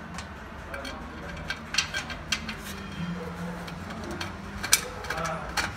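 Scattered light metallic clicks and taps of bolts and a flange plate being handled and fitted by hand into a blower's flange holes, the sharpest click about three-quarters of the way through. A faint steady low hum runs underneath.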